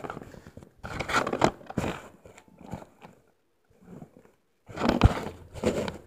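Scraping and rustling handling noise from the camera being moved by hand and settled into place, in irregular bursts with a sharp knock about five seconds in.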